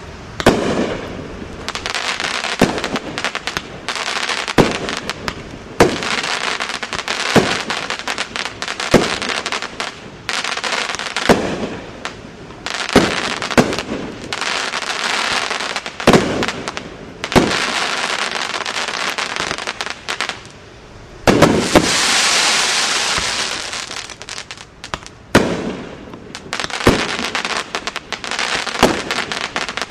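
AAH Fireworks 'OOH's & AAH's' 500-gram aerial repeater cake firing shot after shot. A sharp bang comes every one to two seconds, each followed by a long hissing crackle from the crackle stars. A denser, louder crackle runs for a few seconds about 21 seconds in.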